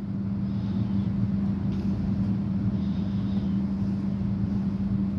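A steady low mechanical hum, one unchanging tone over a low rumble.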